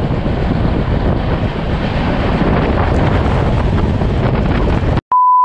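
Passenger train running, heard from its open doorway with wind buffeting the microphone. About five seconds in it cuts off and a steady high beep tone begins.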